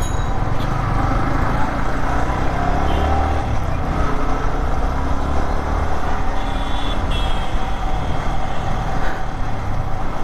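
Yamaha sport motorcycle heard from the rider's camera: the engine runs steadily under a heavy low rumble of wind and road noise. A short high beep sounds about two-thirds of the way through.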